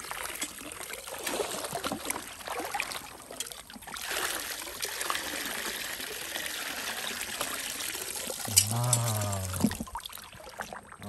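Water trickling and pouring out of a tilted plastic bucket as it is drained, with small splashes. A short voice sounds about three quarters of the way through.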